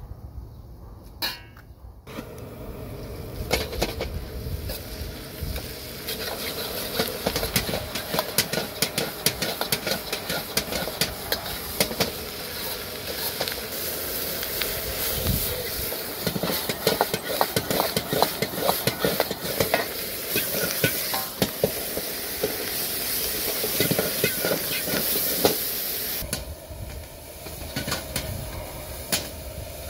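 Chicken gizzards sizzling in a frying pan while a utensil stirs and scrapes them, with many quick clicks. It starts about two seconds in and eases off near the end.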